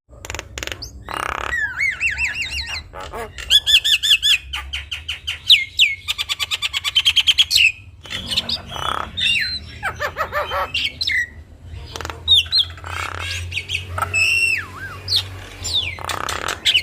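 Javan myna singing a varied, vigorous song of whistled glides and harsh squawking notes, with a fast run of rapidly repeated notes about five seconds in.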